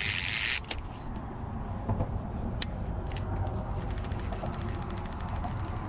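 Fishing reel's drag buzzing for about half a second as a fish pulls line, then, from a little past halfway, a fast run of fine clicks from the reel, over a steady low rumble.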